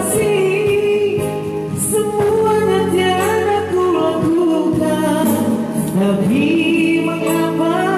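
An old Indonesian pop song: a high voice holds long, wavering notes over a sustained instrumental backing.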